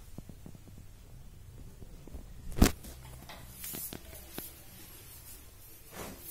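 A single sharp knock about two and a half seconds in, among faint scattered clicks and rustling.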